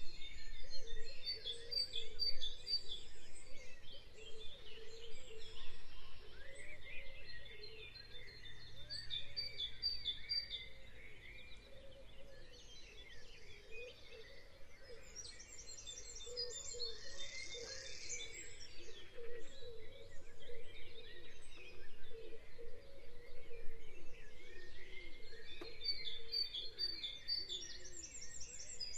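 Birdsong ambience: several birds chirping, with bursts of quick, high trills that come and go every few seconds.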